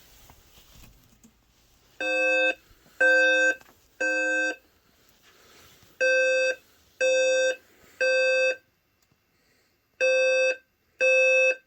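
Fire alarm evacuation tone from the speaker strobes of a Notifier voice evacuation system: a steady pitched beep in the temporal-three pattern, three half-second beeps a second apart, then a pause, repeating. It starts about two seconds in.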